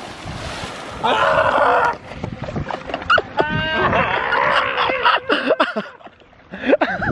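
Water splashing briefly at the start, then a person shrieking and yelling in loud wordless bursts, with a high rising cry a few seconds in.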